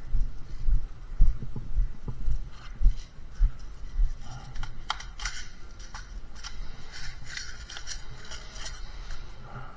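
A player's footsteps thudding against the body-worn camera about twice a second. About four seconds in they give way to scattered sharp clicks and the rustle of gear or brush.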